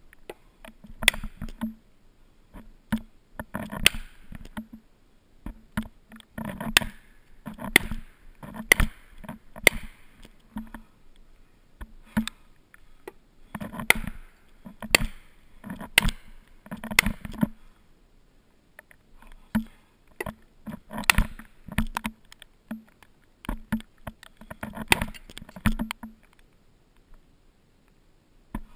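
An axe's head pounding a plastic felling wedge into the cut at the base of a standing tree, driving it in to tip the tree over. Sharp knocks come in irregular bunches of several blows, with short pauses between.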